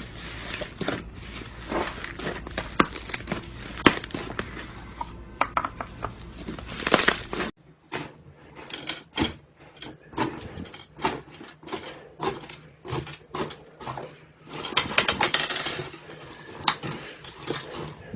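Slime being squeezed and pressed by hand, giving a run of irregular sharp clicks, pops and crackles, with denser crackling bursts about seven seconds in and again near fifteen seconds. A low background hum cuts off abruptly about seven and a half seconds in.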